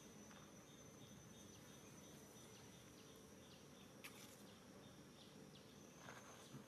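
Near silence with faint insects: a steady high buzz and a run of short chirps about three a second in the first half. A soft click about four seconds in and a brief rustle near the end.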